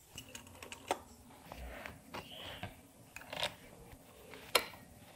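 Scattered light clicks and knocks of an e-bike fender and an open-end wrench being handled while the fender's mounting bolt is fitted at the front fork. One sharp metallic click about four and a half seconds in is the loudest.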